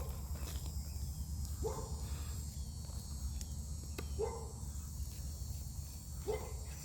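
A dog barking in the distance, four short barks about two seconds apart, over a steady high drone of crickets and a low rumble.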